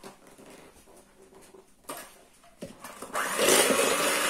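A couple of light knocks, then about three seconds in an electric hand mixer switches on and runs steadily, its beaters whisking cream cheese and sugar in a bowl.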